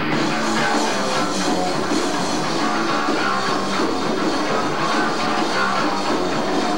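Live rock band playing loud distorted electric guitars. Drums and cymbals come in right at the start, joining guitar that was playing alone, and the full band then plays on steadily.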